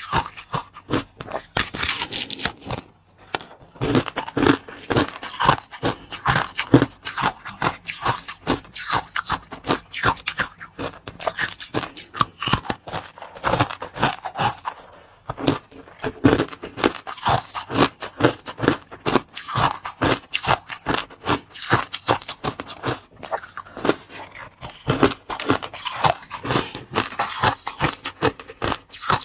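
Close-up crunching and chewing of food: a continuous run of crisp cracks and crackles, several a second, with no pauses.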